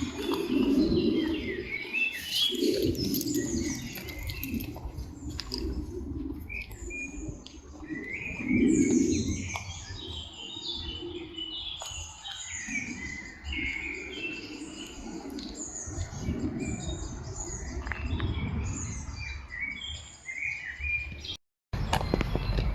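Several songbirds chirping and singing over one another, many short repeated notes and warbles, with a lower uneven sound underneath. The sound cuts out briefly near the end and picks up again.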